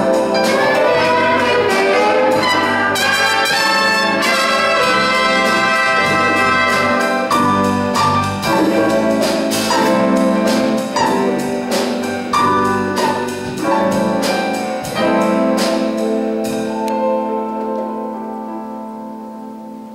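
Big-band jazz ensemble of saxophones, trumpets, trombones and rhythm section playing the closing bars of a tune: loud full-band chords with sharp accented hits and drum strokes, then a long held final chord that fades out near the end.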